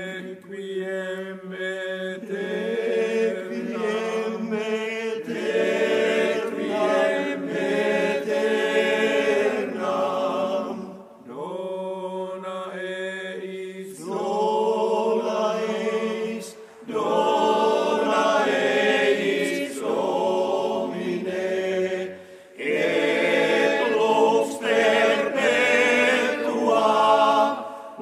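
Male-voice choir singing, in long phrases with short breaks between them.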